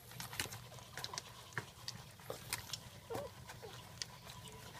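Newborn Jack Russell puppies giving a few faint, short squeaks over many soft clicks and rustles as the mother dog licks and nuzzles them after whelping.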